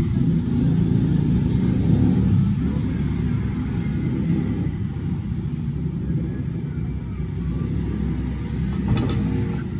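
Jeweller's soldering torch flame blowing with a steady low rumble as it heats small gold parts on a soldering block. A light click sounds near the end.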